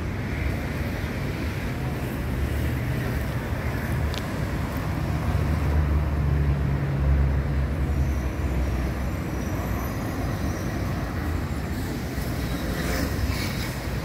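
Street traffic: road vehicles passing with a steady low rumble that swells about halfway through.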